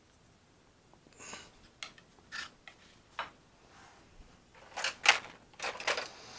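A plastic jar being picked up and handled and its lid worked open: scattered clicks and scrapes of plastic that start about a second in and become busier and louder near the end.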